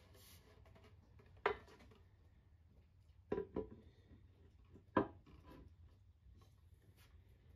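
Wood knocking against cast iron as a refinished wooden panel is worked into the cast iron frame of an antique New Victor school desk. There is one knock about a second and a half in, two close together around the middle, and one more a little later.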